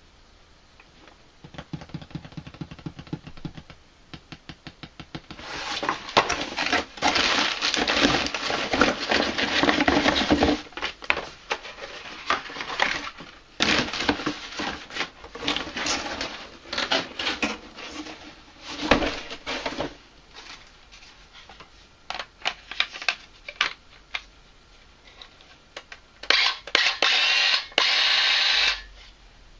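Cardboard box and packaging rustling and scraping in irregular bursts as a Black & Decker BDCCS20 cordless circular saw and a battery are taken out and set down. There are many clicks and knocks from the plastic tools being handled, and a longer, steady rustle near the end.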